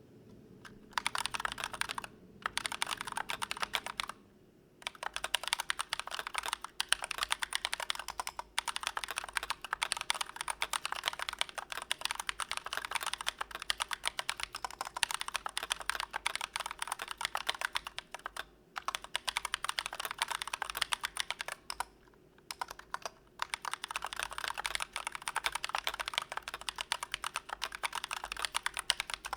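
Typing on a Glorious GMMK Pro mechanical keyboard for a sound test: fast, continuous keystroke clacks in long runs, broken by a few brief pauses.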